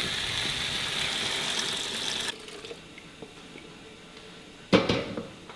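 Coconut milk poured from a stainless steel bowl into a hot wok of fried spice paste, a steady pouring hiss that stops abruptly about two seconds in. A single sharp clank near the end.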